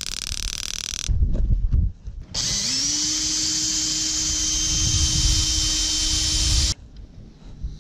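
Handheld electric power tool working on a locked box: a short high whine at the start, then it spins up about two and a half seconds in and runs at a steady pitch for about four seconds before stopping.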